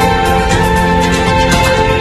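Background music: held notes over a steady, quick beat.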